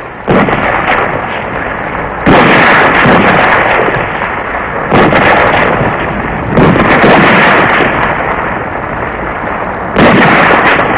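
Battle sounds: a series of about five loud blasts, each starting suddenly and dying away over a second or two, from gunfire and explosions in an assault on a dug-in position.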